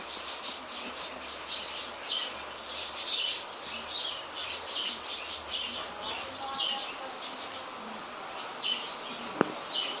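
Rapid, high-pitched chirping in short repeated runs, over a steady very high thin tone, with one sharp click near the end.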